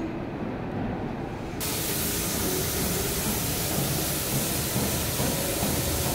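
A low, steady rumble, then about a second and a half in a steady hiss of compressed-air spray guns spraying glaze onto ceramic wash-basin pedestals starts abruptly.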